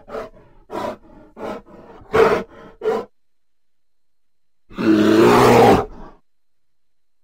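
Bear vocalising: a quick run of short grunts, about two a second, for the first three seconds. Then, after a pause of a second and a half, one long roar lasting about a second and a half.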